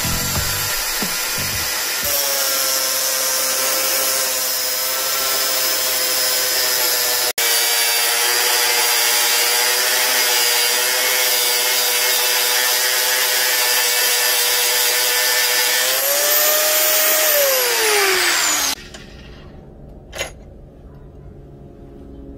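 Angle grinder with an abrasive cut-off wheel cutting through 5160 spring steel leaf spring: a loud, steady high whine with a harsh grinding hiss. Near the end the whine rises briefly, then slides down in pitch and stops abruptly, leaving faint handling noise and a single click.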